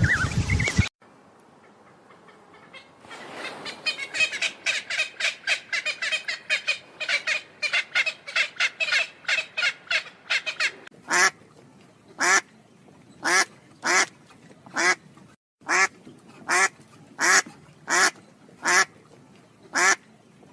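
An animal calling in short, quack-like calls: a quick run of them at first, then single calls spaced evenly, about one and a half a second. A louder sound cuts off suddenly about a second in.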